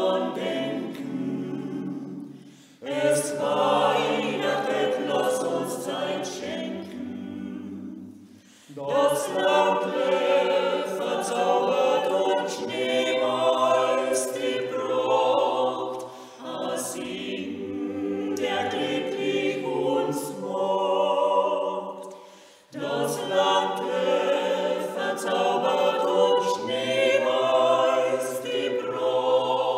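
A small a cappella vocal ensemble singing in close harmony, in phrases separated by short breaks.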